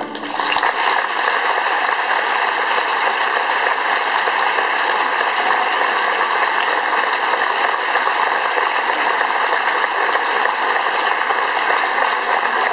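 Audience applauding steadily, a dense, even clapping that takes over as the orchestra's last note stops at the very start.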